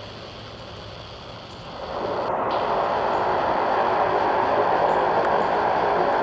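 Twin turboprop engines and propellers of an ATR 42-300: a steady noise that swells sharply about two seconds in and then stays loud.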